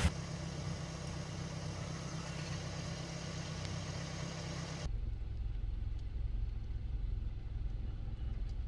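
Vehicle engine idling with a steady low hum, with light rain falling on a muddy puddle as a soft hiss over the first half. After a cut about five seconds in, only the low engine hum remains.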